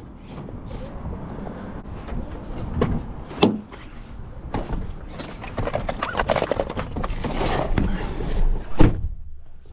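Wind rumbling on the microphone, broken by a few sharp knocks, the loudest just before the end.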